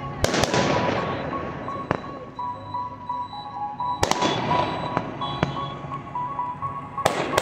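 Aerial firework shells bursting overhead as a series of sharp bangs, each trailing off into crackle and echo. The biggest come right at the start, about four seconds in and near the end, with smaller pops in between.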